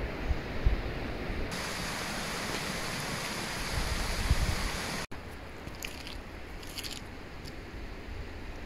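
Outdoor wind noise: a steady rushing hiss with wind buffeting the microphone in low thumps near the start and again about four seconds in. About five seconds in the sound cuts off abruptly to a quieter hiss with a few short high ticks.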